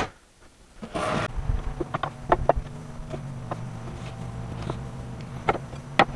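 Wooden pallet slats being handled and set down on a workbench: scattered light knocks and clacks, the loudest two near the end, over a steady low hum that comes in about a second in.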